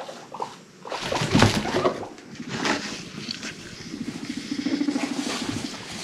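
Guinea pig rumbling: a low, fast-vibrating purr lasting a second or two near the end, the sound guinea pigs make when rumblestrutting. Before it come rustling and knocks, loudest about a second and a half in.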